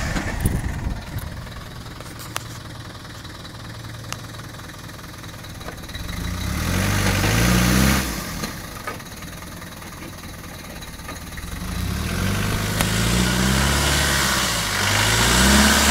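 Off-road 4x4's engine pulling through a deep muddy rut: running low at first, then revs climbing from about six seconds in and dropping sharply at eight, then building again in rising surges toward the end.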